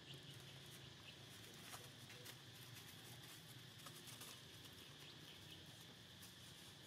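Near silence: faint outdoor background with a steady high hiss and a few faint, scattered ticks.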